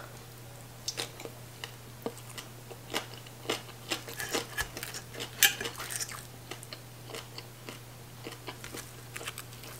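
Close-up chewing of a mouthful of spicy green papaya salad and fried fish, with irregular crunchy clicks and crackles. A steady low hum runs underneath.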